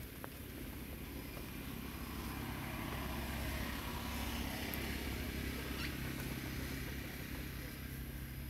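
A motor vehicle's engine passing by: a low steady hum that swells to its loudest in the middle and fades again.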